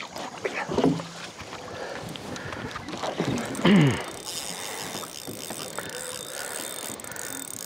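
Steady wind and water noise around a small open boat, with a brief vocal sound under a second in and a louder, falling vocal groan from an angler just before halfway.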